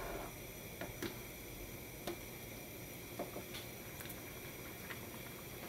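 Diced papaya simmering in a pan of water: a faint steady bubbling, with a few small clicks and taps as a silicone spoon stirs and turns the pieces.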